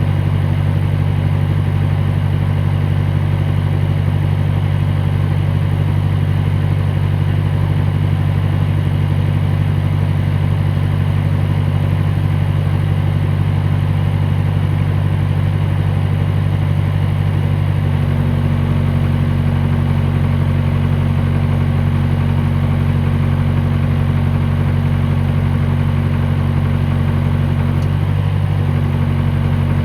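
John Deere 450 loader's engine running steadily while the backhoe's hydraulics are tested, its note shifting slightly about two-thirds of the way through and again near the end.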